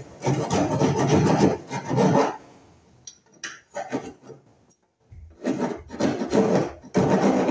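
Hand file rasping on wood in quick back-and-forth strokes, widening a cut-out in wooden trim for a metal electrical box. The filing breaks off a little past two seconds in, with a few scattered scrapes and a brief pause, then resumes steadily about five seconds in.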